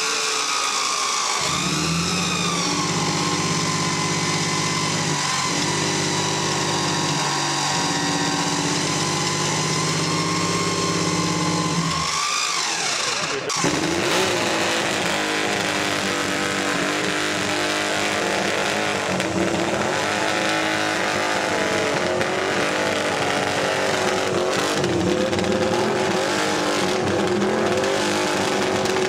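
MV Agusta three-cylinder racing motorcycle engine being started and warmed up on a roller starter. It runs steadily with a high whine for the first twelve seconds or so, which sinks and cuts off about thirteen seconds in. After that the engine runs on its own and is revved in uneven throttle blips.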